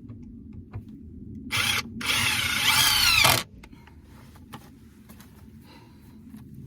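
Power drill run in two bursts: a short one about one and a half seconds in, then a longer one of about a second and a half, its pitch sweeping as it runs.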